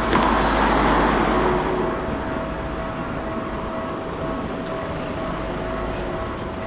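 A vehicle passing over a railway level crossing. Its noise is loudest at the start and fades over about two seconds, leaving steady traffic noise with a constant hum underneath.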